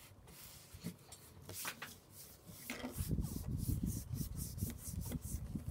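A4 paper being handled by hand on a tabletop, creased and smoothed flat: irregular papery rubbing and sliding strokes, busier in the second half.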